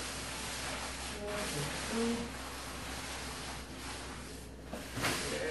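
A fresh banana leaf rustling and rubbing as it is pulled over a gas cooker's burner to wilt it soft and pliable, the rustle swelling and dipping, over a low steady hum.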